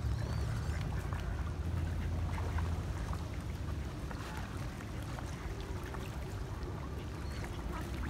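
Ambience by the water: a steady low rumble with scattered faint calls from ducks and Canada geese, including a couple of short high chirps.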